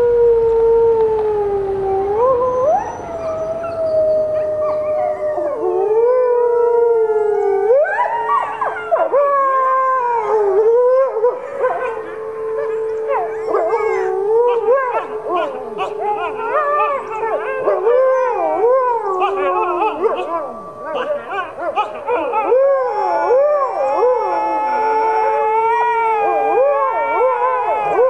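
A chorus of canine howls. A single long howl comes first, more voices join after several seconds, and then many overlapping, wavering howls rise and fall together, with quick yipping cries among them.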